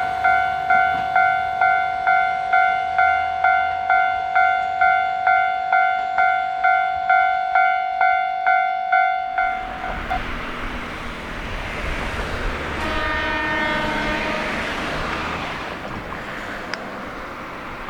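Japanese railway level-crossing warning bell dinging at about two and a half strikes a second, stopping abruptly about ten seconds in. After that, Kiha 40/48 diesel railcars rumble past, and a short horn sounds partway through.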